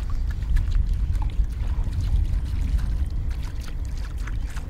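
Water splashing and lapping, with scattered small splashes over a steady low rumble.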